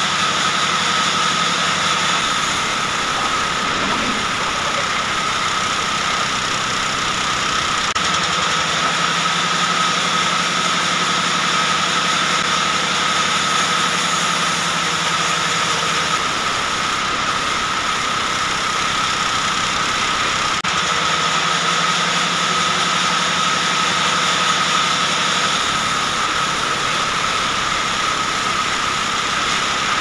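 Large belt-driven sawmill band saw running steadily with a constant high whine while its blade saws a log into boards. A lower hum comes and goes several times.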